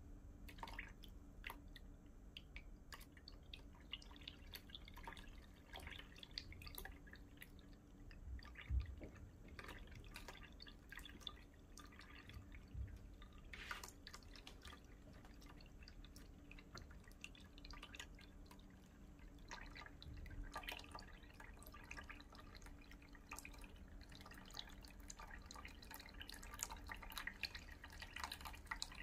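Faint dripping of water draining through a small tube at the bottom of a plastic bottle into a plastic basin; the emptying bottle is drawing cigarette smoke in at the top. A soft thump about nine seconds in.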